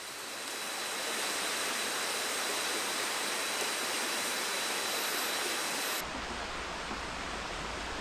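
Steady rushing of a shallow rocky rainforest river. About six seconds in the sound changes abruptly to a duller rush with more low rumble.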